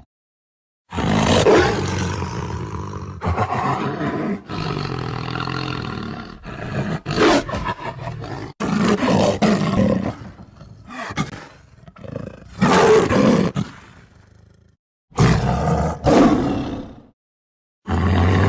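Tiger roars and growls: a string of separate roars, each starting loud and fading, with abrupt cuts to dead silence between some of them.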